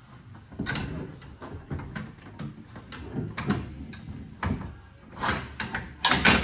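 Tractor seat being unlatched and swivelled around on its metal base: a run of clunks, clicks and rattles, with the loudest clunk near the end.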